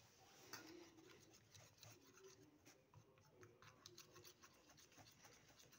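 Faint scraping and small clicks of a plastic spoon stirring against a small steel bowl, mixing slime activator into glue.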